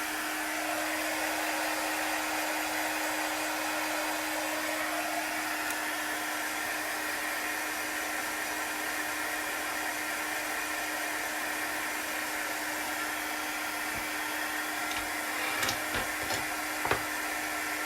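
Handheld hot-air dryer running steadily with a constant hum, drying freshly applied chalk paste. A few light knocks near the end, the loudest about a second before it ends.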